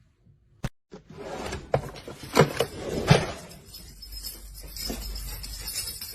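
Clattering and knocking of objects, with sharp knocks about two and a half and three seconds in, after a near-silent first second broken by a single click.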